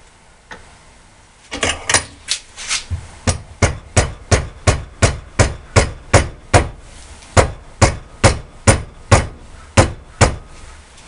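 Rubber mallet striking a barbed fitting to drive it into nylon fuel hose clamped in a vise. About twenty even blows, a little over two a second, start about a second and a half in and stop just before the end.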